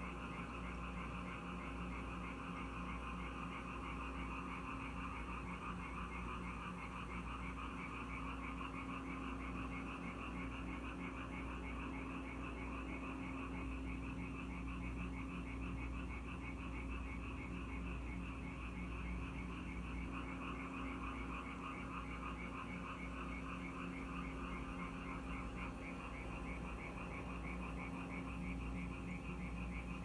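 Japanese tree frogs calling in a dense, continuous chorus of rapid, quacking pulses.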